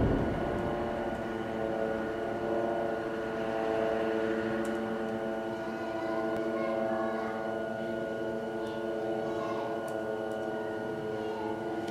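A steady drone of several held tones sounding together, sustained without a break, with a few faint ticks over it.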